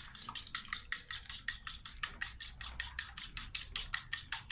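Raw eggs being beaten fast in a stainless steel bowl: the utensil clicks and scrapes against the metal in a quick, even rhythm of about eight strokes a second.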